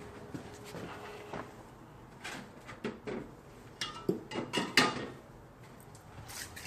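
Rummaging: a string of knocks and clatters of hard objects being moved and set down, loudest about three-quarters of the way through, while a can of WD-40 is fetched.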